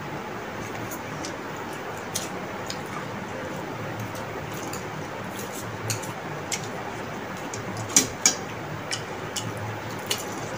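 Close-up eating sounds: chow mein noodles being slurped and chewed, with a few short sharp clicks, the two loudest close together about eight seconds in, over a steady hiss.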